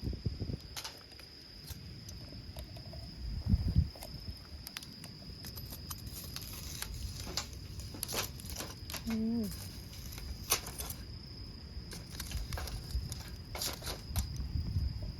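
Insects, crickets by the sound of the surrounding seconds, chirping in a steady high tone. Wind buffets the microphone right at the start and again about three and a half seconds in, and scattered sharp clicks and knocks come throughout.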